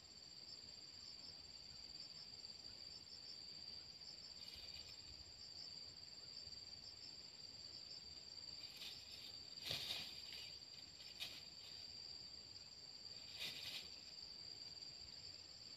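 A faint, steady insect chorus, holding two continuous high-pitched tones. A few short scratchy sounds break in about a third of the way in, twice around two-thirds, and again near the end.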